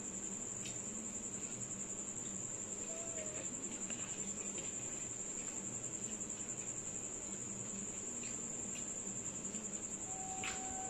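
A cricket trilling continuously in a steady, high-pitched, rapidly pulsing note, with a few faint soft clicks from hands mixing rice on china plates.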